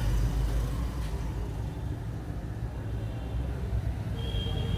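A steady low rumble of background noise, with a faint thin steady tone joining in near the end.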